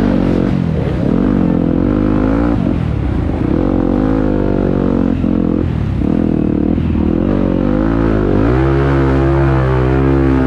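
Dirt bike engine revving, its pitch rising and dropping several times as the throttle is opened and closed, then held at a steadier speed for the last two seconds.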